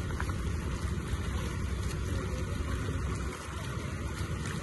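Steady low rumble of road traffic on a waterlogged street, with a wash of running-water noise over it.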